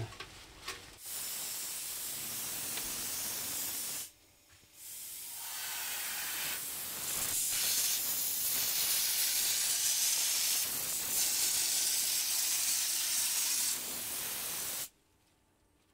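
Compressed-air hopper texture gun with a 6 mm nozzle spraying a cork-and-glue mix, laying a first coat. The hiss of air and spray runs for about three seconds, breaks briefly, then runs again for about ten seconds and cuts off suddenly.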